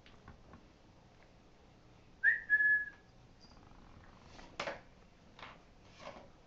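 One short, high whistled note, held steady for under a second, about two seconds in. It is followed by three short sniffing puffs from a Shih-Poo puppy.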